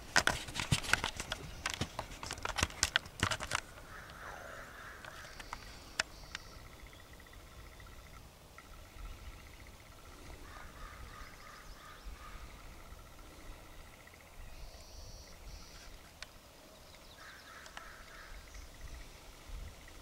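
A metal fan rake scraping and clicking over a stone slab for the first three or four seconds, then birds singing in short repeated phrases.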